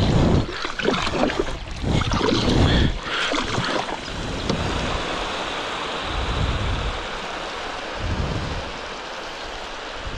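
Canoe on open water: water noise and wind buffeting the microphone, with gusty thumps in the first few seconds giving way to a steady rushing hiss.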